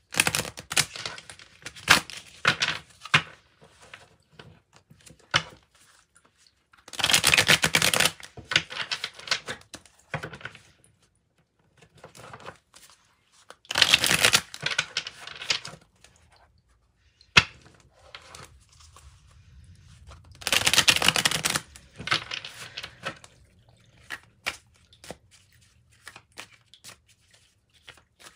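Osho Zen Tarot deck being shuffled by hand: the cards click and slap against each other, with three louder rushes of about a second each, roughly seven seconds apart.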